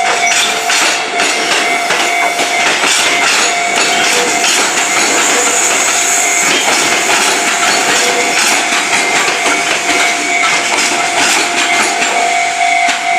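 A Fujikyu line train passing over a level crossing, its wheels clattering steadily over the rails. The crossing's warning bell rings through it, heard clearly again as the train noise eases near the end.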